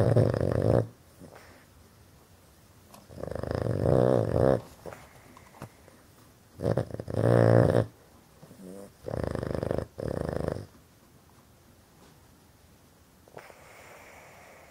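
Boston Terrier snoring loudly in his sleep, the habitual snoring the breed is known for: four long snores about three seconds apart, then a much fainter one near the end.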